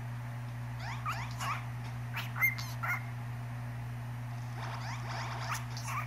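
Cockatiel chirping: short, quick sweeping chirp notes in scattered clusters, a few about one to three seconds in and more near the end, over a steady low hum.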